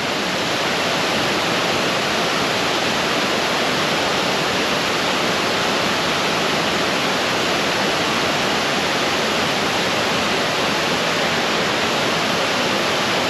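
Creek water rushing steadily over a small falls.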